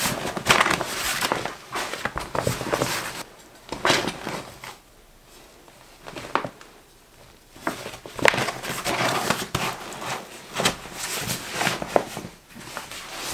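Stiff fabric of a roll-top backpack rustling and crinkling in uneven bursts as it is handled and its top is folded closed, with a few sharp clicks.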